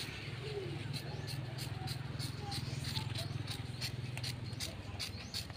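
Handheld trigger spray bottle squirting liquid in quick repeated pumps, about three short hisses a second, over a low steady hum that fades near the end.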